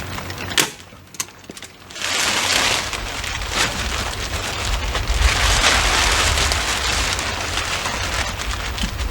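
Synthetic house wrap sheet rustling and crinkling as it is handled against the wall. Sharp staple-gun snaps come about half a second in and again near four seconds.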